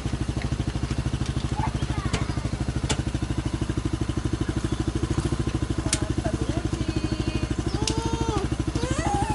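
Sport go-kart's small engine idling steadily with an even, rapid putter.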